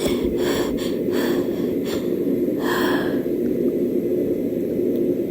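A person with a cold sniffing and catching quick breaths between sneezes: a run of short noisy sniffs and gasps in the first three seconds, over a steady low hum.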